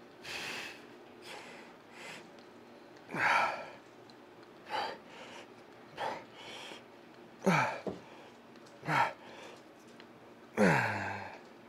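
A man's forceful exhales on each rep of a single-arm cable tricep pushdown, about one every second and a half. The later ones turn into short grunts that fall in pitch.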